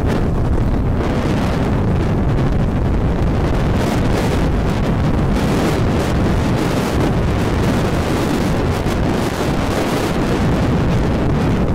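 Wind buffeting the microphone of a camera moving fast down a snow slope: a steady, deep rushing noise with no pauses.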